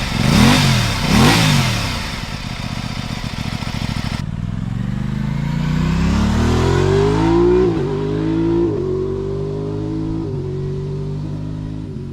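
Aprilia 660 parallel-twin motorcycle engine blipped twice in quick revs, then accelerating hard, its pitch climbing through several upshifts.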